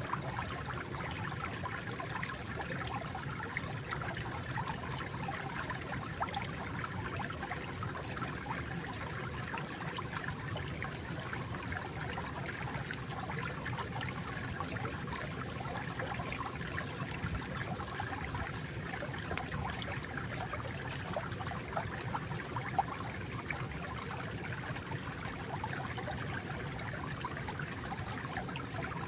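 Small stream of water flowing and trickling steadily, with fine bubbling and splashing.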